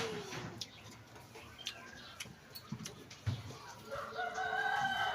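A rooster crowing once, starting about four seconds in: one long, drawn-out call. A few faint clicks come before it.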